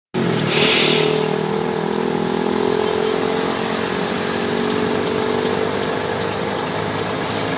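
A machine running steadily with an even, pitched hum, with a brief hiss about half a second in.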